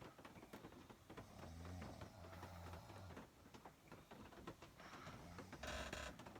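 Faint snoring: a low buzzing snore lasting nearly two seconds about a second and a half in, then a short rougher, breathier snore near the end, repeating with the breathing. Faint ticking clicks run underneath.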